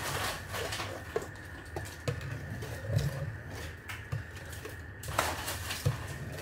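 Wire whisk beating a thin egg-and-sugar batter in a metal pot, with irregular clicks and taps as the whisk strikes the pot's sides.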